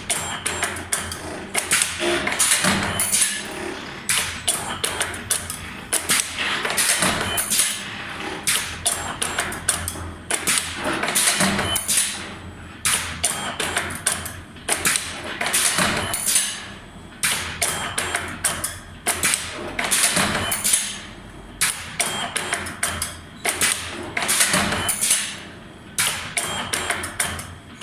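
2D CNC wire bending machine running, feeding and bending steel wire: a continual series of sharp knocks and clacks in uneven clusters over a steady motor hum.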